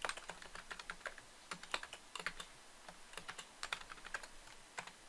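Typing on a computer keyboard: a run of quick, uneven key clicks, fairly quiet.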